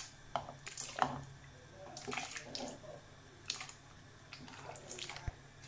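Chopped cucumber pieces dropping into water, a scattering of small splashes and light knocks.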